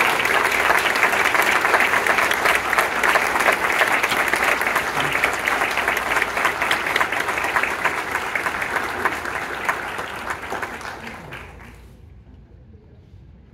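Audience applauding, tapering off and stopping near the end.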